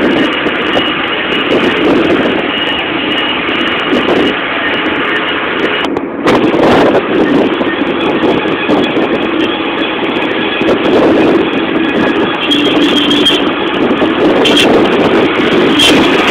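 Steady engine and road noise heard from inside a moving vehicle on a hill road, with a brief dip about six seconds in before it comes back louder.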